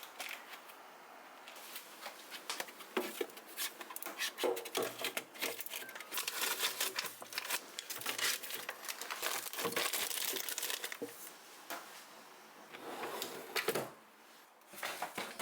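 Plastic wrapping or bags crinkling and rustling as they are handled, with scattered small clicks and knocks, easing off near the end.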